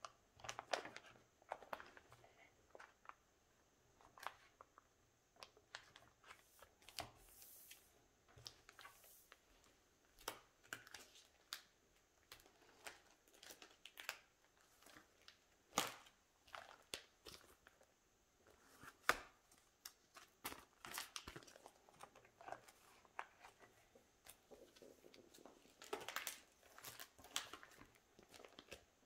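Quiet crinkling of plastic binder sleeves as photocards are slid in and out and pages are handled, with scattered light clicks and taps.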